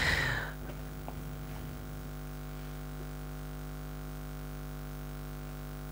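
Steady electrical mains hum, a low drone with several fixed tones stacked above it, holding level throughout.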